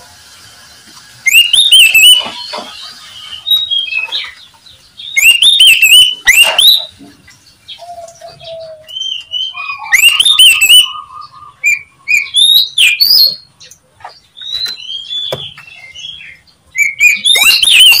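Oriental magpie-robin (kacer) singing: about five loud bursts of fast, varied whistled phrases a few seconds apart, with fainter single call notes between them.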